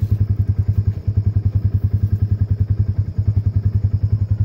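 Engine of the Ranger utility vehicle idling close by, a steady, even low throb of about a dozen pulses a second.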